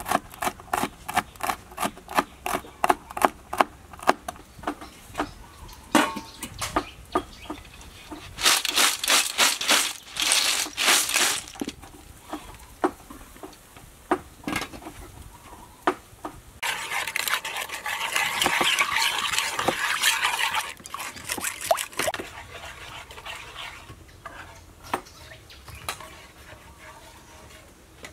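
Kitchen knife chopping red chillies on a wooden cutting board, quick regular strokes at about three a second for the first six seconds or so. Later come louder clattering bursts and a stretch of steady hiss while a metal pot of boiling snails is opened.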